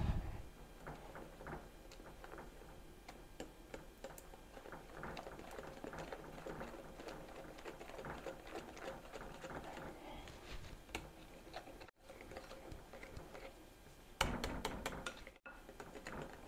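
Hand whisk beating cake batter in a glass bowl: rapid ticking and scraping of the wires against the glass, louder for about a second near the end.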